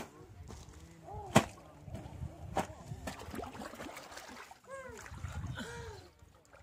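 River water sloshing and splashing, with three sharp knocks in the first few seconds and several short rising-and-falling cries over it.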